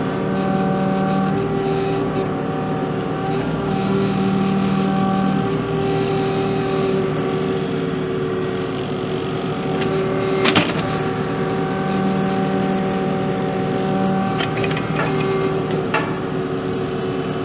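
Kubota mini excavator's diesel engine running steadily, working harder in spells of a second or two as the bucket digs a trench, with a single sharp clank about ten seconds in.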